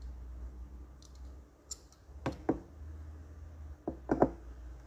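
Light clicks and knocks of a diecast toy car being handled and set down on a cutting mat: two clicks about halfway through, then a quick cluster of sharper clicks near the end as a soldering iron's metal tip is pressed onto the rivets of its base. A low steady hum runs underneath.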